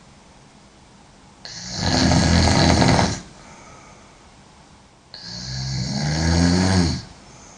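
A woman snoring loudly: two long, rasping snores, each nearly two seconds and swelling as it goes, the second starting about five seconds in, with a quiet pause between them.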